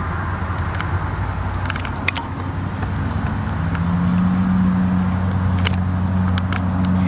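A steady low engine hum, with a second, higher hum coming in and growing a little louder about halfway through. Faint scattered clicks sound over it.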